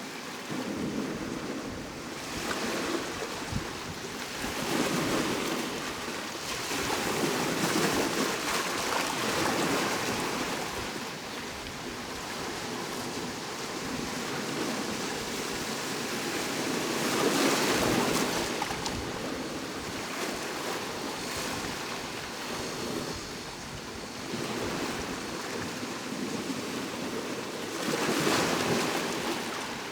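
Ocean surf, waves breaking and washing ashore in swells that rise and ease every few seconds; the biggest surge comes a little past halfway.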